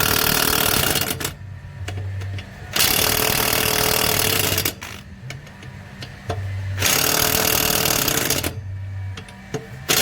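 Small electric impact wrench hammering on the wheel's lug nuts in three bursts of a second or two each, with quieter gaps between them as it moves from nut to nut. This is the final tightening pass around the wheel in a crisscross pattern.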